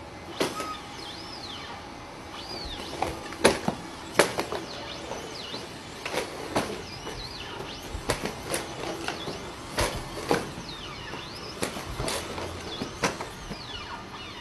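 Atlas humanoid robot's hydraulic joints whining in short rising and falling glides as it moves through a gymnastics routine, with about a dozen sharp thuds of its feet and hands striking the floor.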